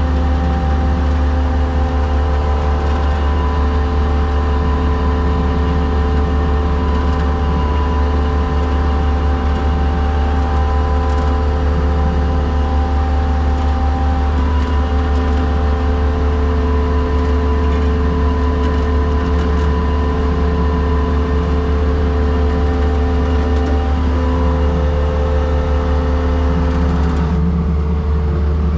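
Skid steer engine running at a steady speed, with steady whining tones over its low hum while the winch works; some of the whine drops out near the end.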